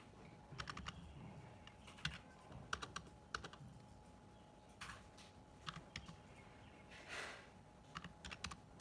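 Faint typing on a computer keyboard: scattered key taps in small groups of one to three as digits are entered.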